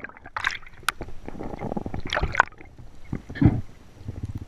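Muffled underwater noise of water moving around a diving spearfisher's camera, with scattered clicks and gurgles.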